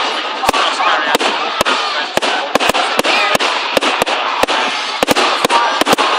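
Fireworks display going off: a rapid, irregular run of sharp bangs, about two or three a second, over a continuous crackle and hiss.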